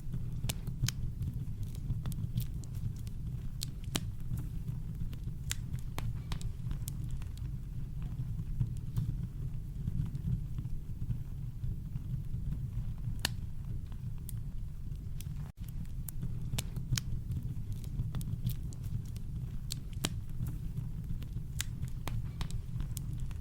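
Campfire crackling: irregular sharp pops and snaps over a steady deep rumble of brown noise, with a momentary dropout about two-thirds of the way through.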